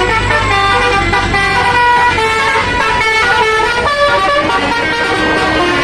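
Tour bus's 'telolet' multi-tone air horn playing a loud tune of quick, stepping notes, with a low rumble underneath that fades about halfway through.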